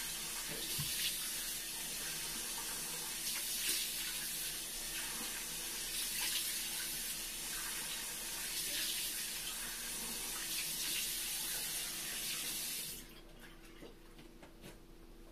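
A bathroom sink faucet runs steadily, with louder splashes every few seconds as hands scoop water from the stream. The water stops suddenly about thirteen seconds in, leaving only faint clicks.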